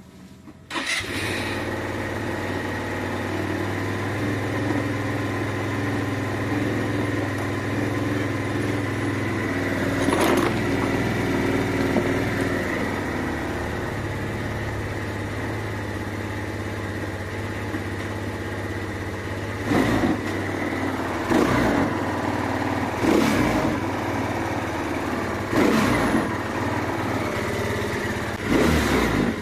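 SYM Cruisym scooter engine started about a second in, on a test run after its throttle body was cleaned, then running steadily at idle. It is blipped briefly once around the middle and several more times near the end.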